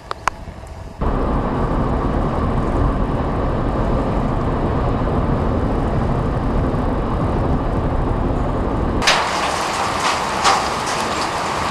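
Steady road and engine noise inside a car driving on a highway, cutting in suddenly about a second in. Near the end it switches abruptly to heavy rain with hail, a rapid clatter of sharp impacts.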